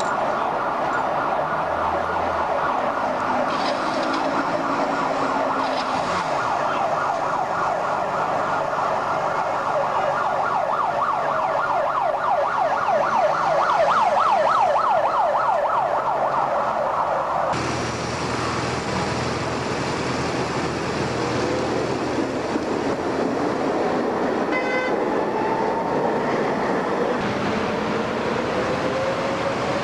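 Street traffic at a tram junction: a steady high-pitched noise with vehicles passing, loudest about halfway through as a city bus drives by close. After an abrupt change partway through, general traffic noise with a motor whine rising steadily in pitch as a vehicle pulls away.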